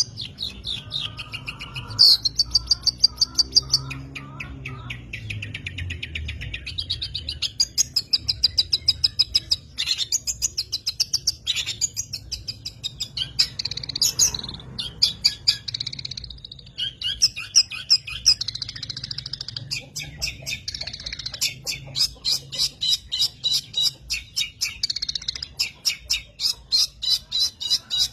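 Long-tailed shrike (pentet) singing a long, varied song of fast repeated chirps and trills, changing phrase every few seconds.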